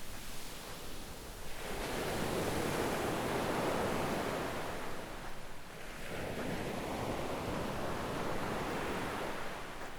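Gentle waves breaking and washing up a sandy beach, two surges in turn: one swelling about a second and a half in and another around six seconds in.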